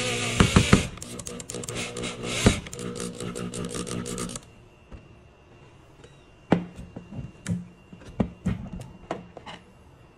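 Power drill driving a screw into wood, into a screw hole repaired with glue and cotton: the motor runs with a steady hum and sharp clicks, then stops about four seconds in. A few light knocks follow.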